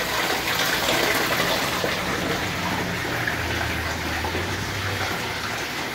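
Pumped saltwater pouring from a pipe outlet into an aquarium, a steady splashing gush as the stream strikes the water surface.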